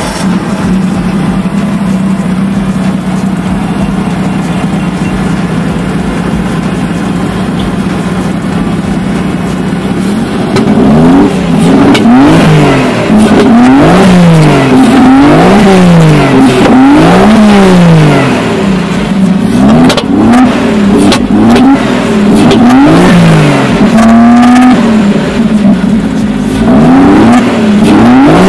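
Jeep Cherokee 4.0-litre straight-six engine idling steadily just after being started. From about ten seconds in it is revved in a string of quick blips, the pitch rising and falling about once a second, with a short break near the twenty-second mark.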